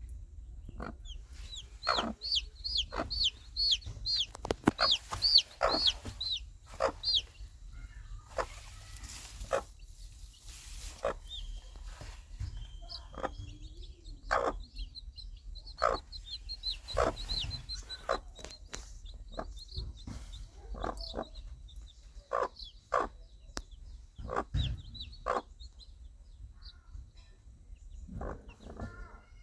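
A mother hen clucking in short, repeated calls to her baby chicks, which answer with high, falling peeps, quickest and loudest in the first seven seconds.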